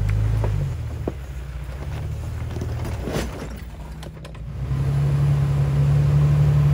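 Jeep Wrangler LJ's 4.0-litre straight-six engine running at low revs as it crawls over rock slabs, getting louder about three-quarters of the way through as more throttle is given. A few short faint knocks are heard along the way.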